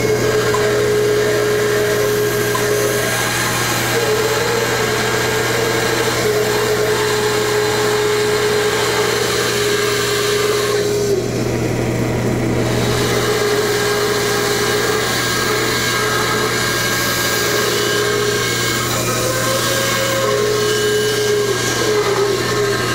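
Bandsaw running and cutting a curve in a walnut frame piece, a steady hum under a whine that breaks off and returns several times as the wood is fed and turned through the blade.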